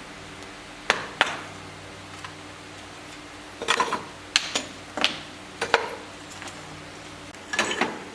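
Sharp knocks and clacks of hard objects being handled or set down, about eight of them at irregular intervals, some in quick pairs, over a steady low hum.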